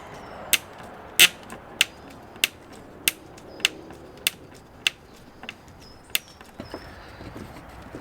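Hammer striking the wooden shed panels in a steady rhythm of sharp knocks, about three every two seconds. The blows stop about five seconds in, with one more knock a second later, over faint bird chirps.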